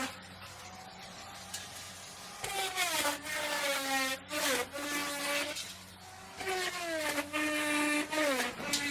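Electric wood router cutting into wood in two passes of about three seconds each: the motor's high whine drops in pitch and wavers as the bit bites, over the rasping noise of the cut.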